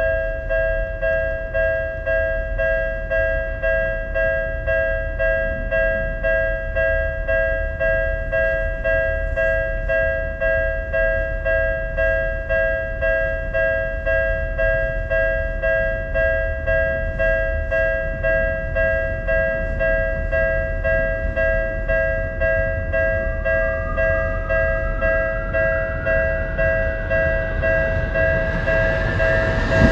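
Japanese railroad crossing's electronic warning bell ringing steadily, about two dings a second. In the last several seconds a rising whine joins it and train noise begins to swell as a train approaches.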